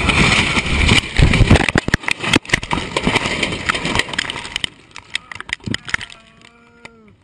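Small plane crashing into trees, heard from inside the cockpit: loud noise with a rapid run of cracks, bangs and crunching as the airframe breaks through, thinning out and fading after about four and a half seconds. Near the end a short held tone dips in pitch.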